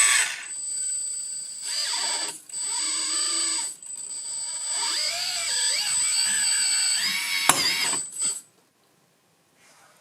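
Small electric motor and hydraulic pump of a full-metal RC hydraulic excavator whining in stretches, its pitch sliding up and down as the hydraulics are worked. It cuts off suddenly about eight seconds in.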